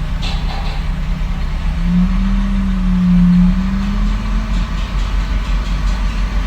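Heavy diesel engine of road-construction machinery running steadily, revving up about two seconds in, holding the higher pitch for a second or so, then easing back.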